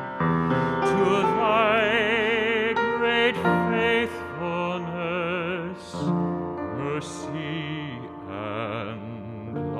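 A solo singer singing with wide vibrato, accompanied by piano.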